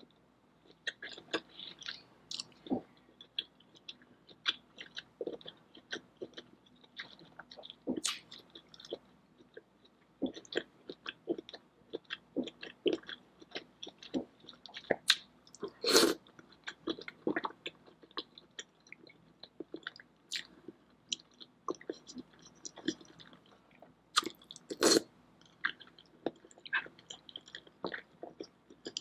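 Close-miked chewing and wet mouth sounds of someone eating a saucy seafood boil: irregular sticky smacks and lip clicks with no talking. A few louder wet smacks stand out, one about halfway through and one near the end.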